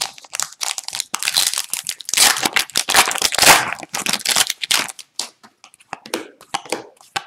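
The foil wrapper of an Upper Deck hockey card pack is being torn open and crinkled, loudest in the middle seconds. After that come short light snaps as the cards inside are pulled out and flipped through.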